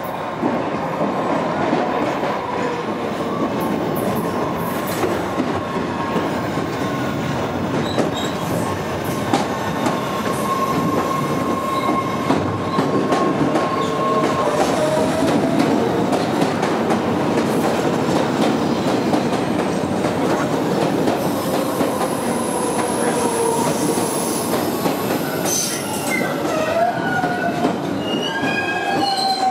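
MBTA Red Line subway cars rolling slowly round a curve into the station close by, with a steady rumble of steel wheels on rail. A thin, steady wheel squeal holds through the first half, and wavering squeals rise and fall near the end.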